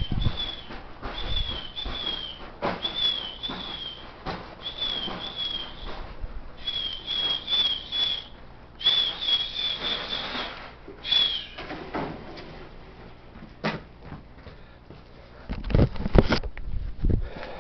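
Strong gusty wind buffeting the microphone. Over it, for the first ten seconds or so, come short high whistled chirps, mostly in pairs, about once a second.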